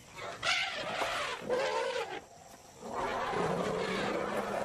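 African elephants calling loudly as reunited family members greet each other: two short calls in quick succession, then after a brief pause a long, lower call.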